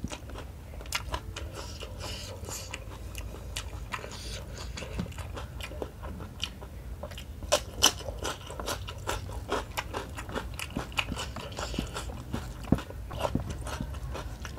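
Close-up eating by hand: wet chewing and lip-smacking on rice, smoked tuna and egg in curry sauce, with many sharp clicks and smacks, the loudest at about eight seconds in and again near thirteen seconds. Fingers scoop food from the metal plate, and a low steady hum runs underneath.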